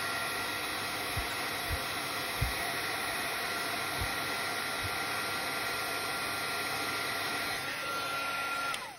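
Embossing heat tool blowing steadily, heat-setting white embossing powder, with a fan whine held on one note. It is switched off just before the end and the whine falls away as the fan spins down. A few soft low knocks in the first five seconds.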